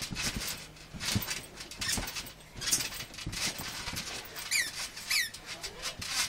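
A trampoline mat thudding about once a second under a person's jumps, with hissy rustles throughout. Near the end come two short high squeaks that fall in pitch.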